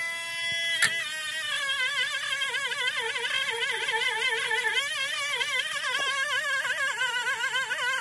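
High-speed handheld rotary tool whining as it scrubs old exhaust paste off the exhaust pipe. It holds a steady pitch at first. After a sharp click about a second in, the pitch wavers down and up several times a second as the tool is worked back and forth against the metal.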